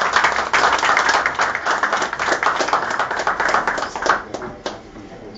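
A roomful of people clapping in applause, thinning out and fading away over the last second or so.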